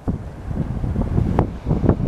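Strong wind buffeting the microphone in uneven gusts, a rumbling, crackling noise with no steady tone.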